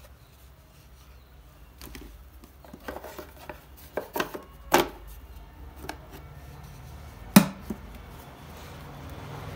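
Knocks and taps of a wooden case being handled: a hardboard panel is pressed into place and the case is turned over. The knocks bunch up in the middle, and one sharp knock about seven seconds in is the loudest.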